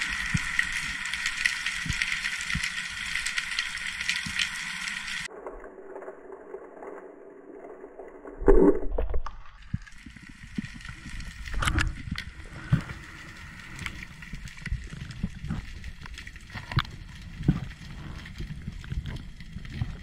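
Muffled underwater noise picked up through a camera housing on a spearfishing dive. A steady buzzing hiss cuts off suddenly about five seconds in. A single heavy thud comes about eight and a half seconds in, followed by scattered low knocks and clicks over a hiss of water.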